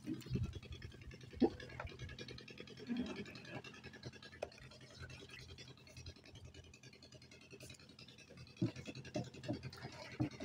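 Light scraping and a few scattered knocks from hands handling fishing gear on the wooden deck boards of a small boat.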